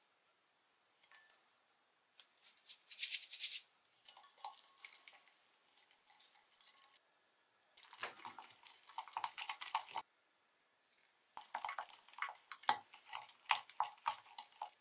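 Wooden spoon stirring a thick sauce in a glass measuring cup, scraping and clicking against the glass in three bouts with short pauses between.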